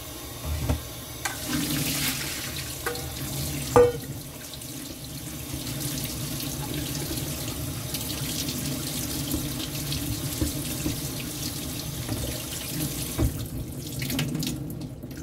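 Tap water running into a perforated stainless steel colander of sliced bitter melon in a sink, while hands toss the slices to rinse off the salt used to draw out their bitterness. A few sharp knocks come in the first four seconds, and the running water drops away near the end.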